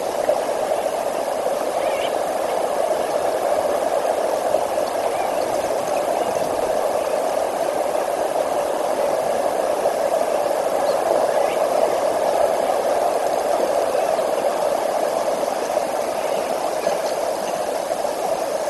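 Steady rushing of river water, with a few faint short high chirps over it.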